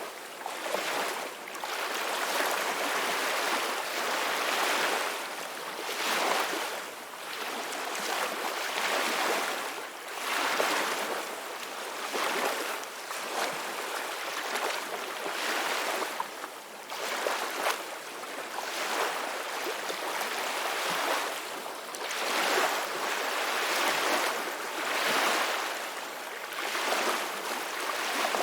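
Ocean waves breaking and washing on a shore, a continuous hiss that swells and eases every two to three seconds as each wave comes in.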